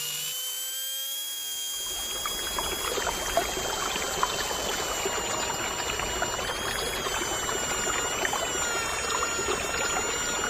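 Small electric motor whining at high speed. About two seconds in, a rushing, crackly noise with small clicks starts up and continues under the whine.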